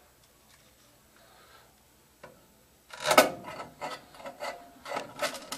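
Short, irregular scraping and rubbing from hands and a screwdriver working at a furnace control board's mounting and wiring, starting about three seconds in.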